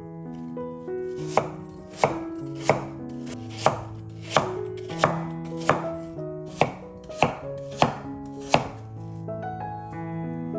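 A knife chopping on a cutting board: about eleven even cuts, roughly two-thirds of a second apart, starting about a second and a half in and stopping shortly before the end. Soft instrumental background music plays underneath.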